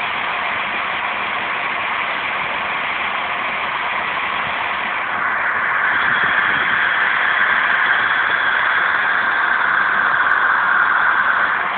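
Steam locomotive No. 186 letting off steam: a steady hiss that grows louder about five seconds in.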